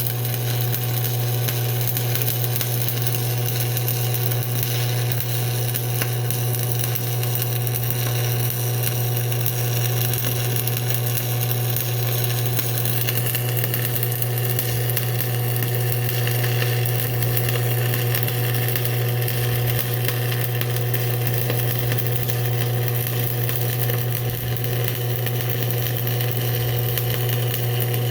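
Stick welding arc on steel flat bar: a continuous, even crackling and frying as the electrode burns a bead in the flat position, over a steady low hum.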